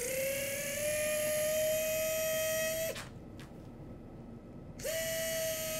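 Surgical power wire driver spinning a guide wire into the base of the fifth metatarsal: a steady whine that climbs slightly in pitch as it comes up to speed, runs about three seconds and stops. It starts again about five seconds in for a shorter run.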